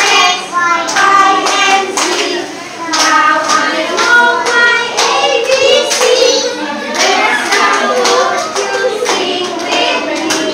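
A class of young children singing a song with their teacher, clapping their hands in time.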